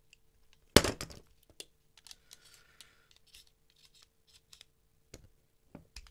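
Metal-on-metal handling of a Benchmade 940 folding knife being taken apart with pliers: one sharp click less than a second in, then a brief scrape and scattered light clicks as the stuck pivot is worked free.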